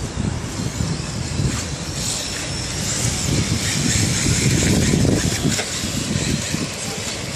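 RC drift cars running and sliding on asphalt, a steady high hiss of motors and tyres, under an irregular low rumble that is loudest about four to five seconds in.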